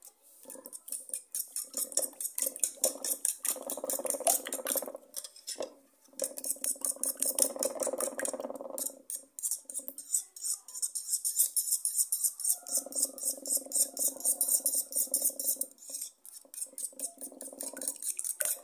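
Metal fork whisking eggs and milk in a bowl: rapid clinking and scraping of the tines against the bowl, with a couple of short pauses.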